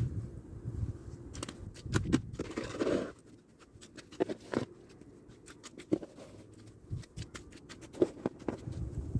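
Snow shovel scraping and chopping into heavy, wet snow with slush beneath it: a string of short scrapes and crunches, with one longer scrape about two seconds in.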